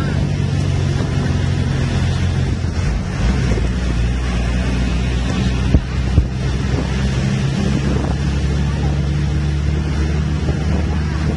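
Bus engine running steadily as it climbs a ghat road, heard through an open side window with wind buffeting the microphone. The engine note shifts a few times, and there are two short knocks about six seconds in.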